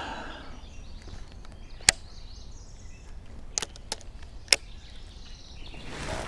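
Four short sharp clicks and taps as a baitcasting rod and reel and the bait are handled in a plastic kayak, the loudest about two seconds in and again near four and a half seconds, over a steady low background rumble.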